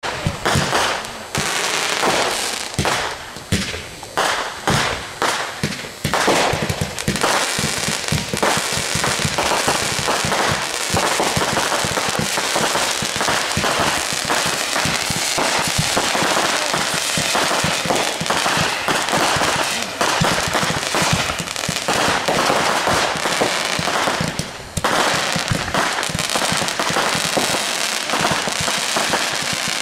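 Aerial fireworks going off: sharp launches and bangs about twice a second at first, then from about six seconds in a dense, continuous barrage of shots, bursts and crackling, with a brief lull near the end.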